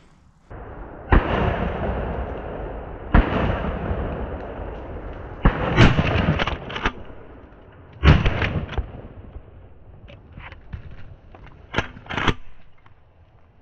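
Pump-action Remington 870 shotgun firing about four loud shots a couple of seconds apart, each trailing off over a second or two, at a running deer. Smaller sharp cracks follow near the end.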